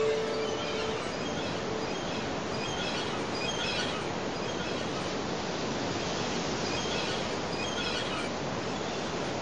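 Steady rushing noise of surf and wind at the sea shore, with faint high chirps now and then, clustered around four seconds in and again near eight seconds. The last held note of music dies away in the first two seconds.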